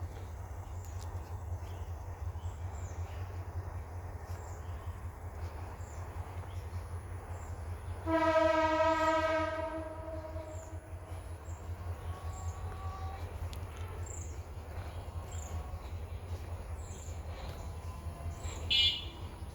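A horn sounds once, a single steady note held for about a second and a half, over a steady low rumble. Short high chirps repeat about once a second, and a brief sharper call comes near the end.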